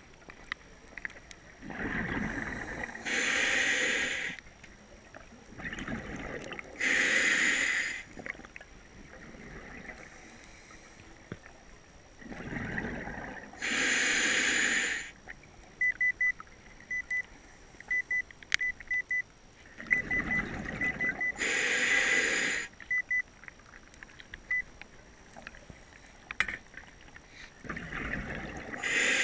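Diver breathing heavily through a snorkel, five slow breaths at six to eight second intervals. Each breath is a rushing draw of air followed by a louder hissing blast through the tube.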